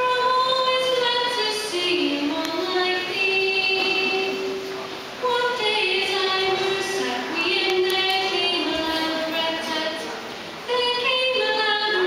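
A high voice singing an unaccompanied melody with long held notes, in phrases of about five seconds that each begin abruptly.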